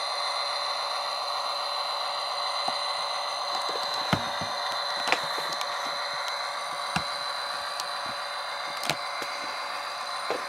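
Tsunami sound decoder in an HO-scale Athearn SD50 model locomotive playing its diesel engine sound at throttle notch two through a tiny speaker: a steady, thin drone with no low end. A few sharp clicks come through now and then.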